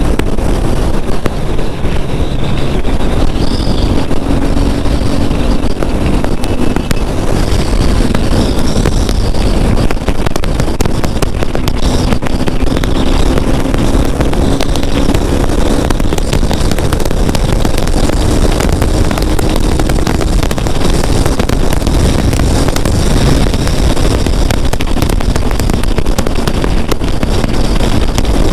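KTM RC 390 single-cylinder engine running hard at highway speed, mostly buried under loud wind rush on the microphone, its note climbing slowly now and then.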